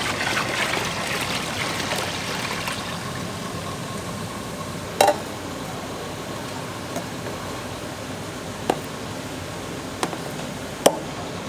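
Water running and splashing for about the first three seconds, fading into a steady hiss broken by a few sharp clicks and knocks.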